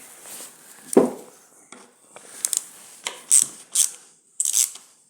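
A ratchet wrench clicking in short back-and-forth strokes, starting about halfway in, with a single knock about a second in.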